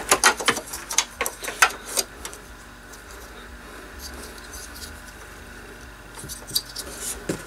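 Sharp plastic clicks and rattles as a grey two-pole battery connector is worked loose and pulled out of the back of an APC Smart-UPS. A cluster of clicks comes in the first two seconds, then a few more near the end.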